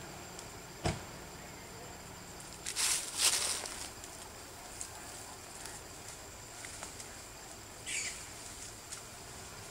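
A brief rustle of leaves and twigs, the loudest sound, about three seconds in, after a single sharp snap about a second in; a short high call near the end over a steady outdoor background.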